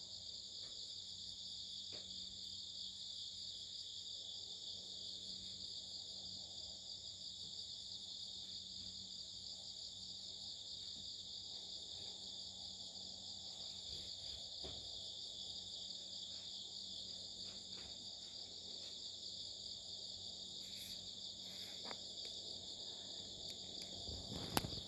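Chorus of singing insects behind a house: a steady, unbroken high trill at several pitches at once. A single sharp click comes near the end.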